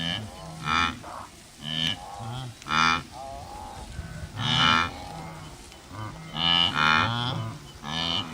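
Wildebeest calling: a series of short, nasal, cow-like grunts and honks, repeated irregularly about a dozen times.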